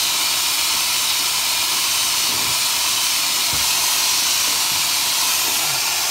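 Steam hissing steadily out of a cast-iron steam radiator whose supply valve is not yet fully closed.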